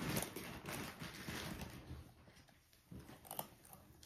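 A cat eating dry kibble from a bowl: a quick run of small crisp crunches and clicks that thins out about halfway through, with a few faint clicks near the end.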